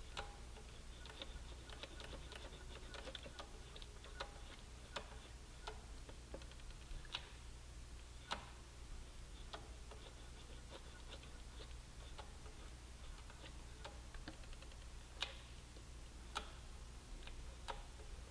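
Faint, irregular light clicks and ticks, a few sharper than the rest, over a low steady hum.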